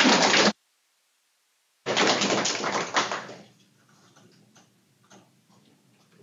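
Audience applauding. The clapping drops out to dead silence for over a second, comes back, then dies away about three and a half seconds in, leaving a few faint scattered claps or knocks.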